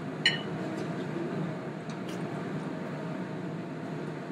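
Steady hum of restaurant kitchen ventilation, with one sharp ringing clink of a metal fork against a china plate about a third of a second in, then a few faint clicks.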